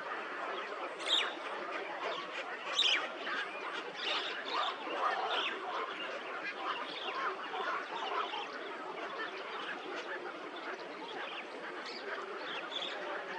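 A flock of birds calling and chattering, with many calls overlapping continuously. A few sharp, high calls sweep down in pitch, about a second in and again near three seconds.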